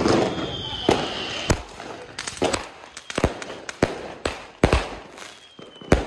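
A 25-shot consumer fireworks cake with one-inch tubes firing: a string of sharp bangs from the shots launching and bursting, about two a second. A short falling whistle sounds near the start and again near the end.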